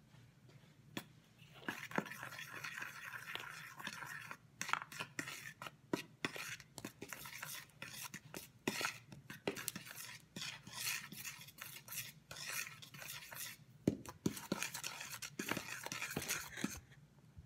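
A fork whisking a dry flour and protein-powder mix in a plastic mixing bowl: quick scraping strokes with clicks of the fork against the bowl, starting about two seconds in.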